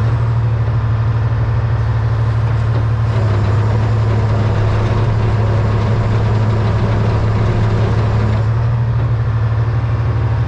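A 1978 Hein-Werner excavator's diesel engine running steadily. For about five seconds in the middle it sounds fuller and slightly louder, as the machine is worked.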